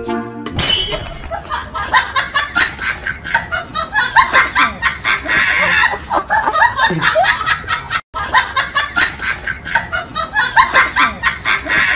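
Several people laughing and snickering in a dense, continuous stream. It cuts out for an instant about eight seconds in and then carries on.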